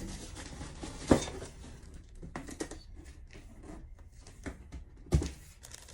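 Cast-iron Dutch oven being handled: light clicks and rustling, with two sharp knocks about a second in and again near the end.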